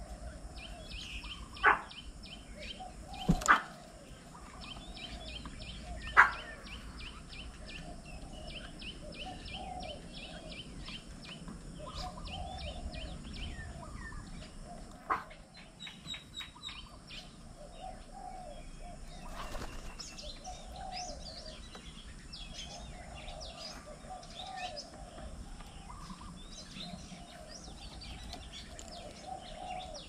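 Many birds chirping and calling together, dense high chirps over lower calls that repeat in short bouts. A few sharp knocks stand out, three in the first few seconds and one about halfway through.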